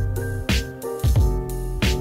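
Background music: a steady beat of deep kick drums and sharp snare-like hits under held keyboard chords, the drums coming in right at the start.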